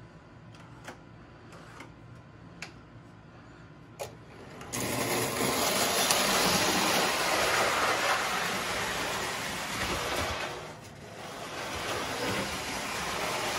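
American Flyer wide gauge electric toy train: a few faint clicks, then about five seconds in its motor starts and the train runs along the tinplate track with a steady mechanical whir and wheel rattle that dips briefly near the end.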